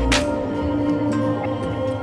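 Background music in a new-age, ambient style with held tones, and a short swish just after it begins.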